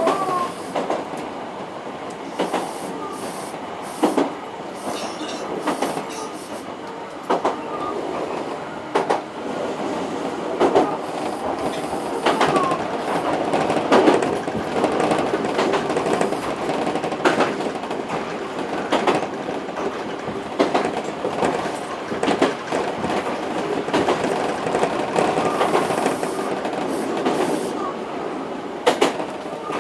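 Hankyu electric commuter train running, heard from inside at the front. The wheels clack over rail joints and points at irregular intervals, with a few brief squeals from the wheels.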